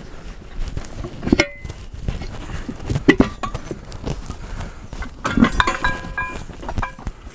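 Steel tyre bar of a manual tyre changer clanking against the steel wheel rim and centre post as the tyre bead is levered back onto the rim: a few sharp metal knocks with a short ringing after them, about a second and a half in, at three seconds, and a cluster around five to six seconds.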